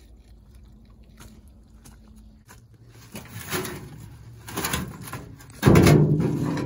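Muddy rocks scraping and knocking against a plastic wheelbarrow tub as they are gathered up by gloved hands: two short scrapes, then a sudden heavy thud near the end that is the loudest sound.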